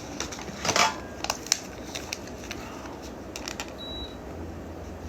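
A few scattered light clicks and taps, irregularly spaced, with a short high beep about four seconds in.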